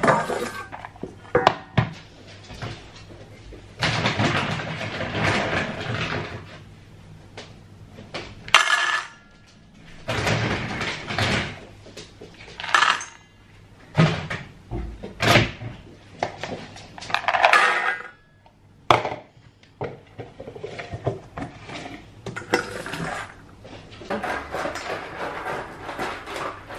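Metal dog bowls clanking and scraping on a stone worktop as dry dog food is dished into them. The clatters and rattles come at irregular intervals.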